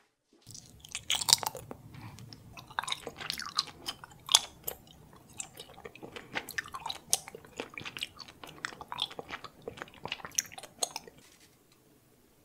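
Thick, sticky honey jelly squeezed out through the neck of a plastic bottle: a dense run of wet clicks and crackles as the bottle is pressed. It starts about half a second in and stops near the end.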